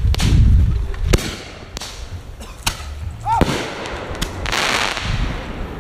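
Consumer fireworks going off: several sharp pops spaced about a second apart, a short whistle about three and a half seconds in, then about a second of crackling as a shower of sparks comes down.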